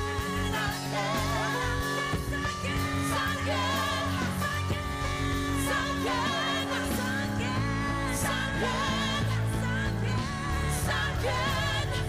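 A woman singing with strong vibrato into a microphone over a live band with bass guitar. The bass fills out more heavily a little past halfway.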